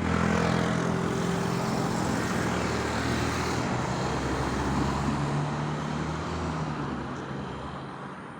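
Road traffic: a vehicle engine running close by with a steady hum over road noise, fading away near the end as it moves off.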